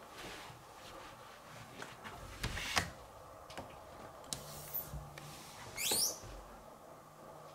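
A wooden door being handled and opened: scattered clicks and knocks, one louder bump near three seconds in, and a short rising squeak about six seconds in.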